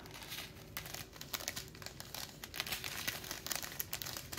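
Strip of sealed clear plastic packets of diamond painting drills crinkling as it is handled, a dense run of irregular crackles.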